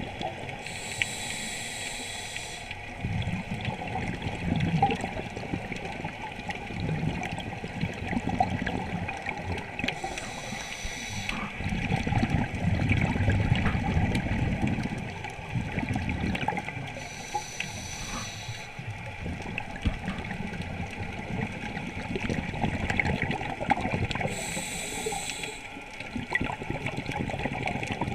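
Scuba diver breathing underwater through a regulator: four short hissing inhalations about seven seconds apart, each followed by a longer, lower bubbling exhalation, with a faint steady crackle in the water throughout.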